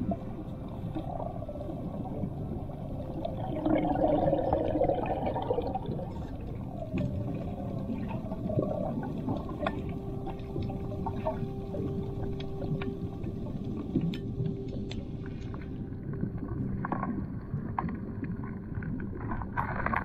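Underwater sound picked up by a camera below the surface: a low rumble of moving water, with bubbles gurgling loudest about four seconds in, and scattered sharp clicks.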